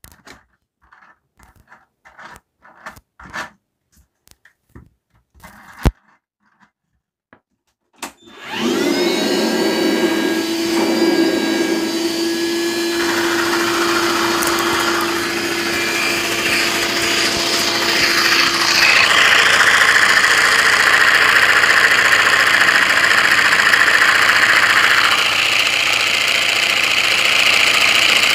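A few quiet clicks and taps, then about eight seconds in a vacuum cleaner motor switches on with a rising whine and runs steadily, sucking air through a Lego flat-two vacuum engine. The pitch of the rushing air shifts twice as the suction changes.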